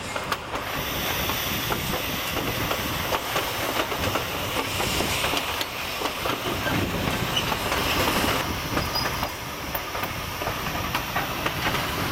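Steam-hauled passenger train running on the rails, heard from a coach: a steady rush of wheel and track noise with clicking from the rails.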